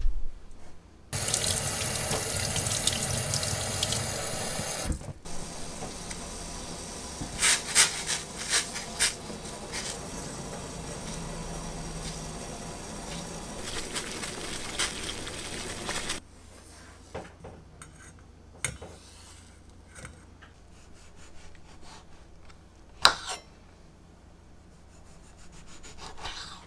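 Kitchen tap running into a sink, hard for the first few seconds, then a little softer with a few clinks, until it is shut off about sixteen seconds in. After that come quiet handling clicks and one sharp knock.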